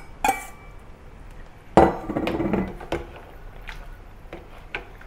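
Stainless steel bowl clinking against a metal soup pot as mushrooms are tipped in, then a metal ladle stirring in the pot, with a louder knock and scrape about two seconds in and a few light clinks after.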